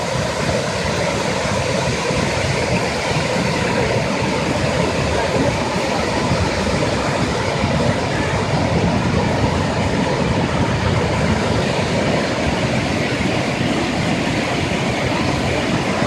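Steady rushing of the Kravice waterfalls, many cascades falling into the pool below.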